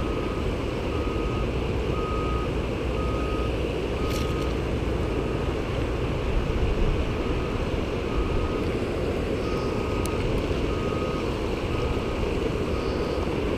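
Fast river water rushing over a low weir and shallow rapids, a steady wash with wind buffeting the microphone. A faint high electronic beep repeats about twice a second through it.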